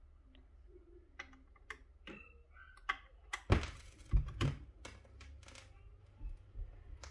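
BSR P157 automatic turntable's auto-start mechanism cycling: a string of clicks and clunks as the tonearm lifts off its rest and swings out over the record, with the heaviest thumps about halfway through. A steady low hum runs underneath.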